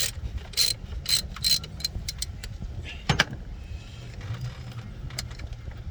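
Metal hand tools clinking and tapping against engine parts while a socket on a long extension is worked onto an AC compressor line bolt: a run of sharp metallic ticks in the first two seconds and a louder knock about three seconds in, over a steady low hum.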